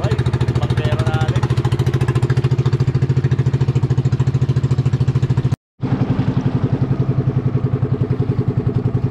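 A small engine running steadily with a fast, even pulse. The sound cuts out completely for a moment a little past halfway, then the engine carries on unchanged.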